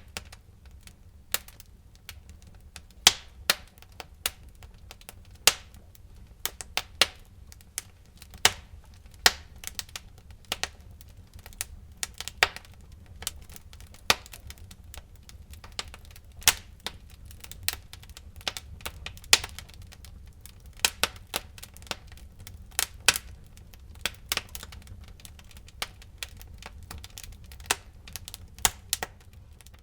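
Wood fire burning in a fireplace, crackling with sharp irregular pops and snaps, several a second, over a low steady rumble.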